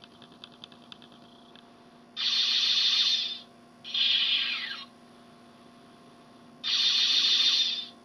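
Electronic weapon-fire sound effect from a scale starship model's built-in light and sound kit, played through its small speaker: a hissing blast of just over a second, then a shorter one with a falling tone. The pair repeats about four and a half seconds later, as the model's torpedo launcher lights up. A faint electronic hum and a few light clicks run underneath.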